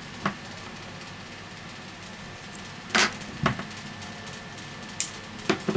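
Short taps and knocks from handling a roll of 3M double-sided tape over an opened phone's metal midframe, about half a dozen in all, the loudest about three seconds in.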